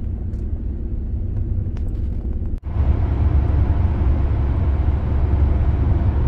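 Road noise of a moving camper van: a steady low rumble. It drops out abruptly about two and a half seconds in, then comes back louder and with more hiss.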